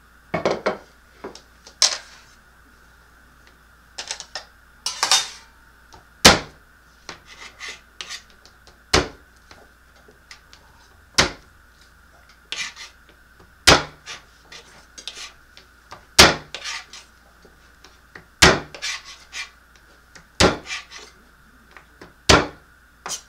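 Chef's knife knocking on a plastic cutting board as garlic cloves are crushed and cut: sharp knocks about every two seconds, with lighter taps between.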